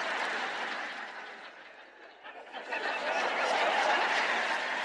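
Audience laughing, dying down about two seconds in and then swelling again.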